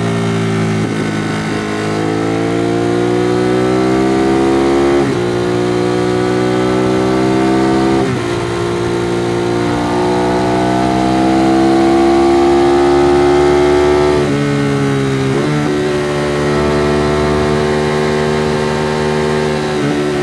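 2016 Ducati Monster 821's L-twin engine through its stock exhaust, with the bike under way: the engine note climbs, drops sharply at each gear change and climbs again, several times. For the last few seconds it runs at a nearly steady, slightly falling pitch.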